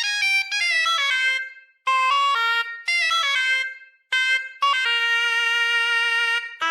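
Solo Middle Eastern wind instrument from the Native Instruments Discovery Series Middle East sample library playing a melody: quick runs of notes that break off twice, then one long held note near the end.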